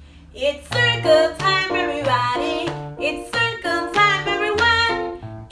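A children's song starts just under a second in: singing over a plucked string accompaniment such as ukulele or guitar, in short repeated phrases.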